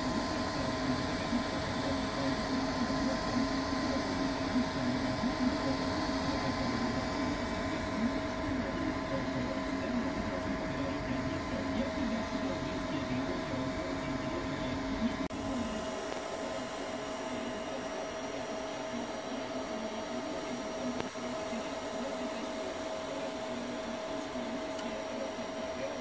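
3D printer running a print: its stepper motors and fans make a steady whirring hum with two steady whining tones and a quick low flutter. About 15 seconds in, the lower flutter drops away and the sound becomes a little quieter.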